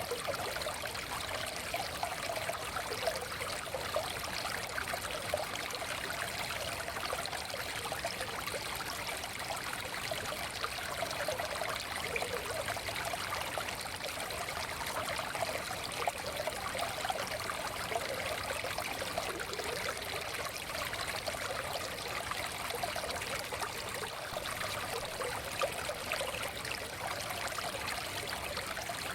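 Small forest stream flowing steadily over stones, an even babbling and trickling of water.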